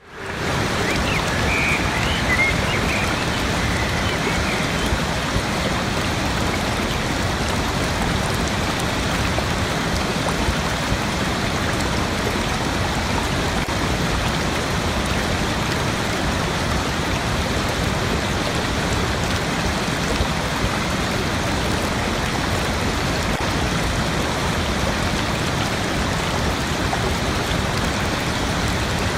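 Waterfall rushing: a steady, dense roar of falling water that fades in at the very start, with a few faint high chirps about two seconds in.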